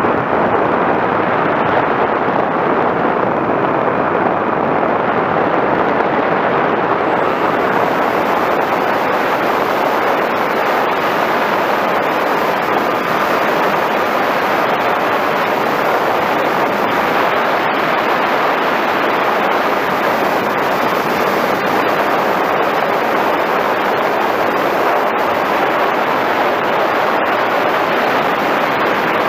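Steady rushing noise of an FPV Raptor electric RC plane in flight, picked up by its onboard camera. Airflow and the motor and propeller blend into one even rush with no clear tone, holding level throughout.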